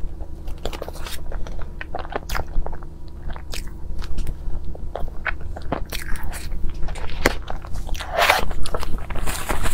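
Close-miked mouth sounds of eating soft strawberry crepe cake: many small wet clicks as spoonfuls of cream and crepe layers are chewed, over a low steady hum. A louder, noisier stretch comes about eight seconds in, as a strawberry is taken off the cake.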